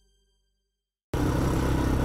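Near silence for about a second, then an ATV's engine cuts in abruptly, running steadily as the quad rides along a dirt trail.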